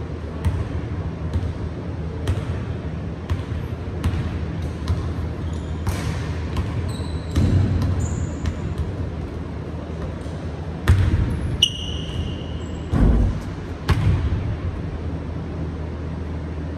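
A basketball being dribbled on a hardwood gym floor, bouncing about once a second. Sneakers squeak briefly on the floor a couple of times, and there are two louder thumps in the second half, over a steady low hum.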